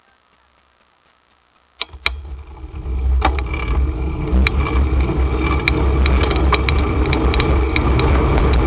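Faint, evenly spaced ticking, like a bicycle freewheel, then about two seconds in a sudden loud, steady rush of wind and road rumble as the bike gets moving, heaviest in the low end, with scattered sharp rattles.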